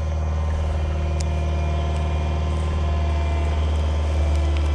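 Diesel engine of a piece of heavy construction equipment running steadily at a constant speed, with a strong low hum.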